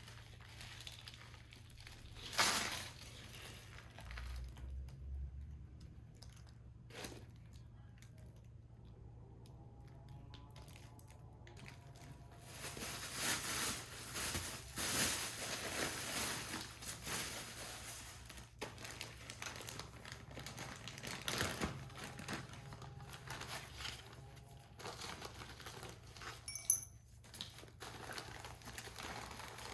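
Crinkling and rustling from something being handled, loudest for several seconds in the middle, with a few sharp knocks.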